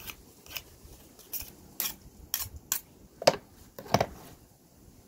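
Putty knife scraping and clicking against a plastic lid heaped with putty, about eight short strokes, ending in two louder knocks about three and four seconds in as the knife is set down on the lid.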